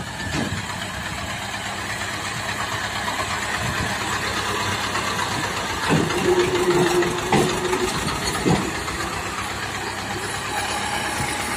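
HMT 1811 tractor's 18 hp diesel engine running under load as it pulls a loaded trailer up out of a rutted dip. It gets louder about halfway through, with a few sharp knocks.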